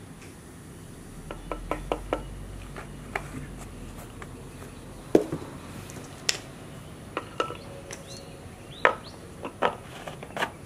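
Scattered light clicks and knocks of hard plastic being handled at a brush cutter's fuel tank, a few louder knocks among them, ending with the tank cap being fitted on.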